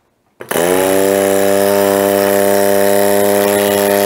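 Old 12-volt rotary-vane car air-horn compressor switching on about half a second in, its pitch rising quickly as it spins up, then running loud and steady: a hum with hiss over it. Its owner calls the result not very satisfying.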